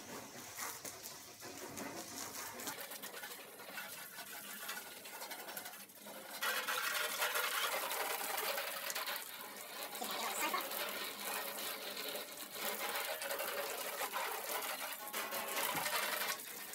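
Garden hose spray nozzle spraying water onto a stainless steel barbecue hood and hotplate, hissing and spattering as it rinses the barbecue down; the spray gets louder about six seconds in.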